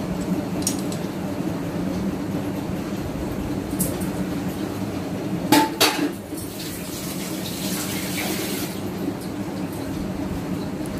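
A bowl is knocked twice against a counter as it is set down a little past halfway, with a short ring, after the filling is scraped out by hand. A steady low hum runs underneath.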